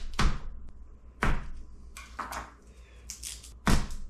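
Garlic cloves being cracked and cut with a small kitchen knife on a plastic cutting board: a few sharp, irregularly spaced knocks and cracks.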